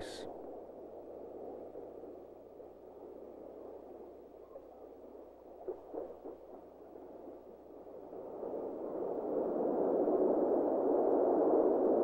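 Muffled whooshing soundtrack ambience, a soft noise bed that swells louder over the last few seconds, with a few faint clicks about halfway through.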